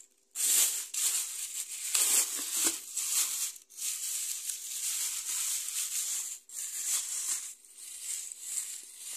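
Plastic shopping bags rustling and crinkling as they are handled, on and off, with a few brief pauses.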